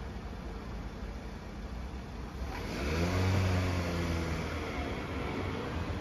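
A small SUV pulls away and drives past over the level crossing, its engine rising in pitch as it accelerates and its tyres hissing on the brick paving, loudest about three and a half seconds in.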